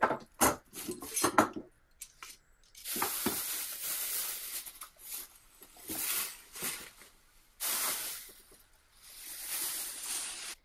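Quick-release bar clamps clicking and knocking as they are released and taken off the seat. Then a clear plastic sheet crinkles in several bursts as it is pulled off the chair seat.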